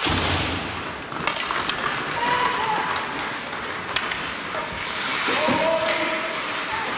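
Ice hockey play in a rink: skate blades scraping and carving on the ice with sharp clacks of sticks on the puck and ice, starting with the faceoff. Shouts from spectators come and go over it.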